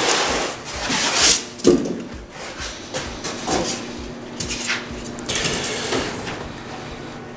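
Bubble wrap and plastic packaging rustling in irregular bursts as it is handled and pulled off.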